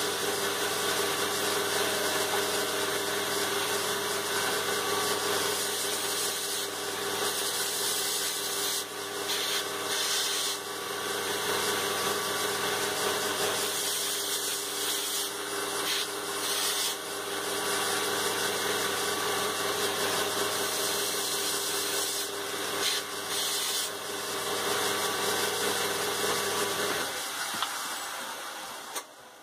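Electric power grinder running steadily with a motor hum, with the grinding hiss varying as ferrocerium rod ends are roughened on the abrasive to give them a gritty key for the epoxy. About 27 seconds in the motor is switched off and the sound dies away.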